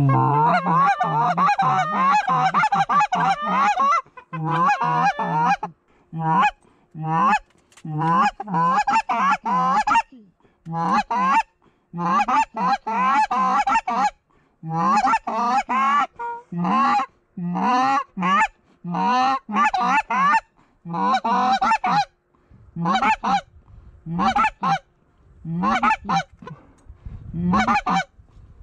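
Canada goose honks and clucks, loud and in quick runs: nearly unbroken for the first few seconds, then bursts of a second or so with short pauses, spacing out toward the end.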